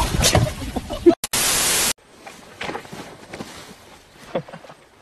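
Outdoor noise ending in a thump, then about half a second of loud static hiss that cuts off suddenly. After it come faint, scattered soft knocks and rustles.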